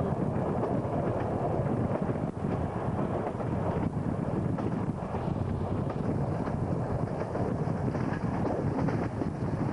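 Wind buffeting the microphone, held out of the window of a moving train, over the steady running noise of the SP32 diesel-hauled train.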